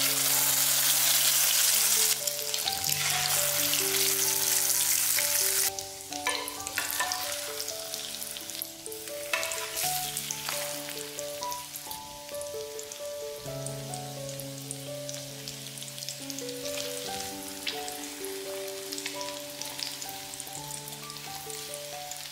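Breaded zucchini slices frying in hot oil in a pan. A loud sizzle lasts for about the first six seconds, then it drops suddenly to a quieter, steady sizzle with scattered crackles.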